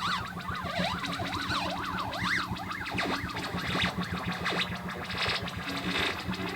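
Hardware synthesizers making experimental noise: a pitched tone sweeping rapidly up and down in a zigzag over a steady, rapidly pulsing low drone, turning to noisier sweeps in the second half.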